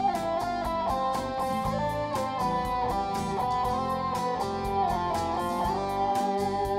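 Background music: a guitar-led instrumental with sustained notes over a steady beat.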